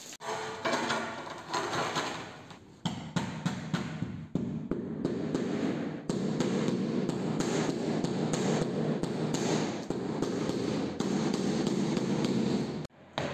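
A squeegee swishes over wet floor tiles for the first few seconds. Then a rubber mallet taps rapidly and steadily on a large floor tile, bedding it down into the adhesive, until the sound cuts off just before the end.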